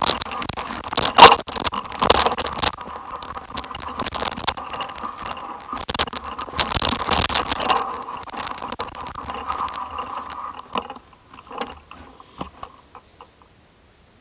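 Irregular crunching and scraping of movement over loose stones and dirt on a rocky track, with many small clicks, dying away about eleven seconds in to a few scattered clicks.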